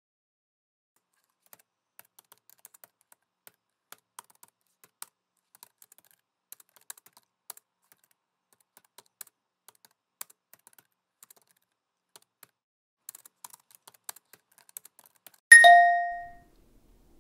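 Laptop keyboard typing: scattered, uneven key clicks, a few at a time. About fifteen seconds in comes a single loud ding that rings out for about a second.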